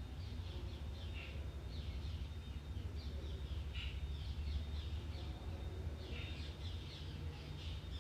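Small birds chirping repeatedly in clusters of short, falling calls, over a low steady rumble.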